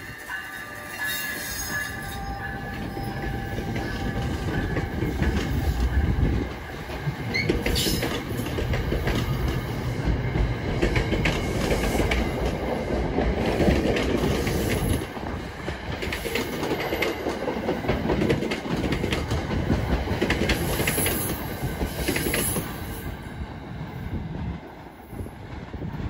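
NJ Transit ALP-46A electric locomotive and its coaches passing and pulling away: a steady rumble of wheels with clicking over the rail joints and a brief high squeal about seven seconds in. It fades near the end as the last cars go by.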